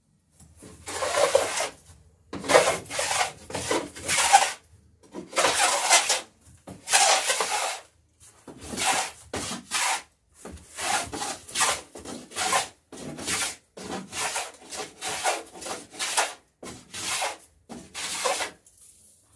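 Repeated hand-tool strokes scraping along the edge of a wooden boat plank, cutting the bevel on the garboard plank: about twenty strokes, each half a second to a second long, with short pauses between.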